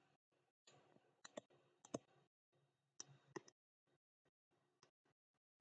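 Faint, sharp clicks of a digital pen's tip tapping on a touchscreen during handwriting, about half a dozen spread irregularly over near silence. The loudest comes about two seconds in.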